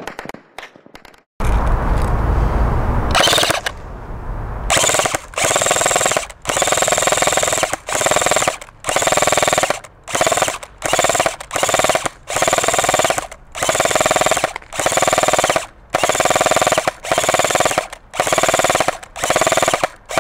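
ICS M3 grease gun airsoft electric gun (AEG), full-auto only, firing about fifteen short bursts one after another from about five seconds in: the whir and rapid clatter of its motor and metal gearbox cycling. Near the start there is a loud low rumble.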